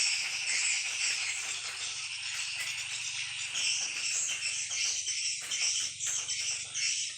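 Swiftlets twittering: a dense, continuous high chittering of many overlapping short calls, steady throughout.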